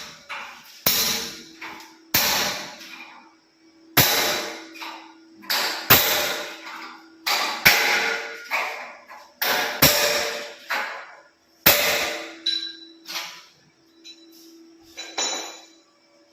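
Hammer blows struck about every two seconds, with lighter taps between, each ringing briefly, while a steel and glass railing is being fitted.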